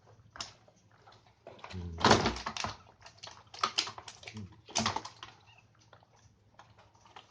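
A series of irregular knocks and clatters, loudest about two seconds in and again near the five-second mark.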